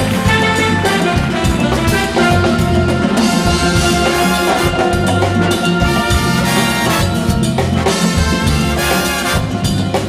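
Big band playing an up-tempo calypso instrumental passage: saxophones and brass over drum kit and percussion, with no vocals.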